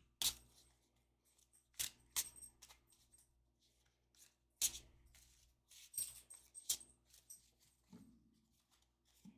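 Tarot deck being shuffled by hand, the cards snapping and slapping against each other in faint, irregular sharp clicks.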